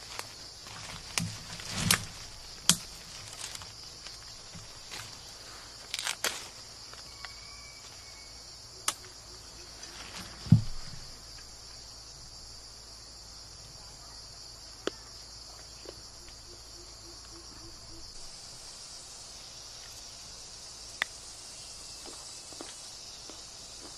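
Steady, high-pitched insect chorus of tropical forest, with scattered sharp clicks and a louder low thump about ten seconds in.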